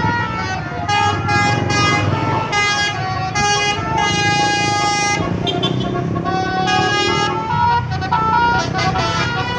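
A basuri multi-tone musical horn playing a tune: a series of short and held notes of changing pitch, with a brief pause about halfway. Vehicle engines rumble underneath.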